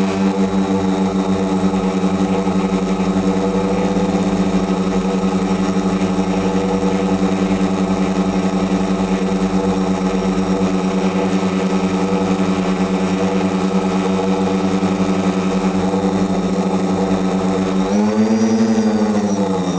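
DJI F450 quadcopter's motors and 10x5 propellers humming steadily in flight, heard through the camera mounted on the frame, with a thin high whine above the hum. Near the end the pitch rises and then drops back lower.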